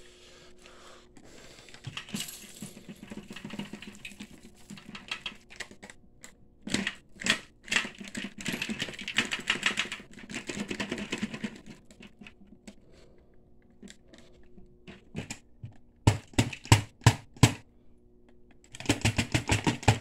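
A Dyson vacuum's dust bin being emptied: sharp clicks and knocks as it is tapped and shaken, with stretches of rustling debris spilling out, and a dense run of knocks near the end.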